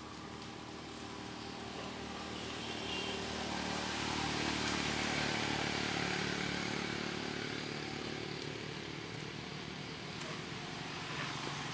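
A motor vehicle's engine passing, growing louder to a peak around the middle and then slowly fading.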